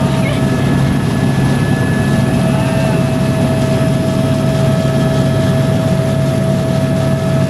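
Helicopter cabin noise during take-off: a loud, steady low drone from the rotor and engine, with a constant mid-pitched whine over it.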